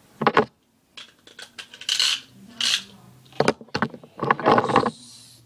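Metal-wheeled Beyblade tops and plastic launchers being handled, clinking and rattling against each other in a series of short, irregular clatters.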